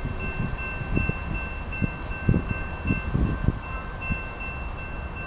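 Railroad grade-crossing warning bell ringing in rapid, evenly repeated strokes, with gusts of wind buffeting the microphone.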